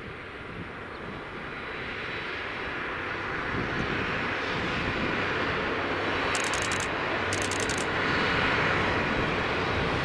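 Two-car KiHa 40 diesel railcar train running past at a distance, its engines and running noise growing steadily louder as it comes nearer.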